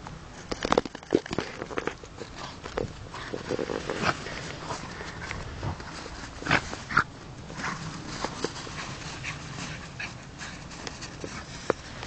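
A dog panting, with irregular short, sharp sounds scattered throughout.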